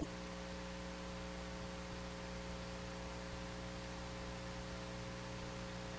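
Steady electrical hum, several fixed tones together over a faint hiss, with a brief click right at the start.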